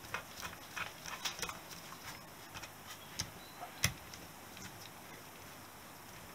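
Small metal clicks and taps of a socket driver turning bolts into an aluminium engine crankcase: a quick run of clicks in the first second and a half, then a few sharper ones, the loudest a single knock about four seconds in.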